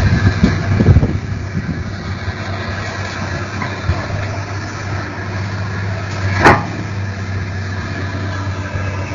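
Diesel engine of a Hyundai hydraulic excavator running steadily as the machine works itself through deep mud, with a low hum; it is louder and uneven in the first second. A single sharp knock comes about six and a half seconds in.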